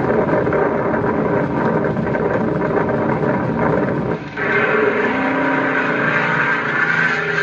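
Steady, loud vehicle noise from a car driving on a winter freeway. About four seconds in the sound dips briefly, and a droning tone then joins it.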